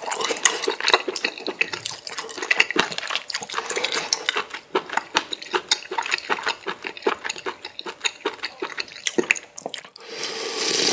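Close-miked eating of spicy instant noodles in broth: wet slurping of noodles and soup with utensils clicking against the bowl, and a longer continuous slurp near the end.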